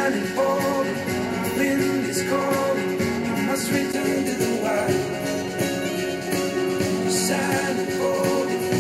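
A song with singing, played through a pair of Tannoy Gold 5 studio monitors and picked up by microphones in front of them; by the end the playback has switched to a pair of KRK Rokit 5 G4 monitors.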